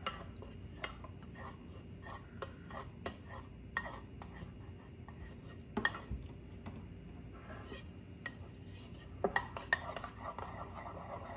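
Wooden spoon stirring tomato sauce and milk in a bowl: soft scraping with scattered light clicks and taps of the spoon against the bowl's side, busier near the end.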